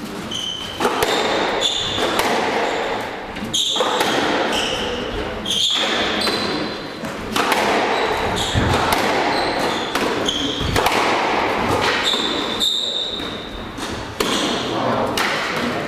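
Squash rally: the ball cracking off racquets and smacking off the walls every second or so, with short high squeaks of shoes on the wooden court floor, echoing in the hall.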